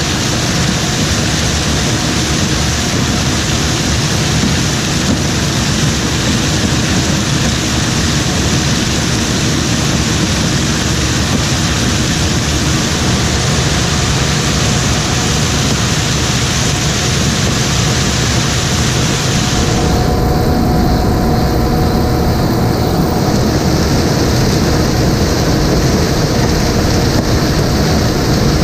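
Heavy diesel harvest machinery running steadily at a loud, even drone. The sound changes abruptly about two-thirds of the way through, losing much of its hiss.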